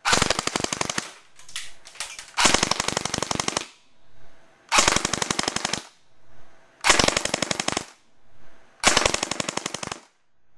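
D-Boys SCAR-L airsoft electric gun firing full-auto bursts, each a rapid, even string of shots at about 12.6 rounds a second. There are five bursts of about a second each, and two short ones about one and a half seconds in.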